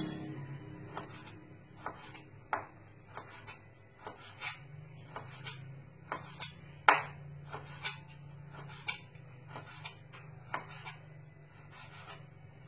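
Kitchen knife slicing meat on a cutting board: irregular knocks and scrapes of the blade against the board, about one or two a second, the loudest about seven seconds in.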